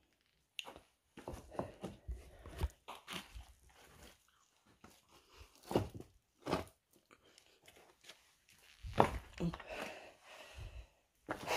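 Footsteps scrambling over loose stone rubble: irregular crunching and scraping of rock and grit underfoot, with a few louder scuffs near the end.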